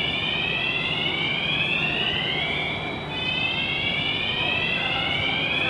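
Emergency alarm siren sounding a slow rising whoop. Each tone climbs steadily for about three and a half seconds, then drops back and starts over, with a new rise beginning about three seconds in.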